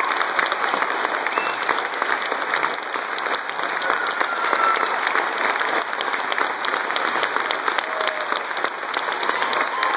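Large audience applauding steadily after a concert piece.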